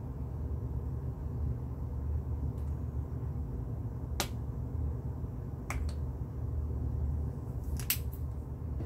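Sharp plastic clicks from small acrylic paint bottles being handled: one about four seconds in, a quick pair near six seconds, and a short cluster near the end, over a steady low hum.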